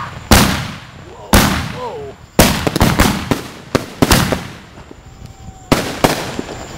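Aerial firework shells bursting overhead: a string of about six loud booms with smaller cracks between them, each boom followed by a rolling echo that dies away.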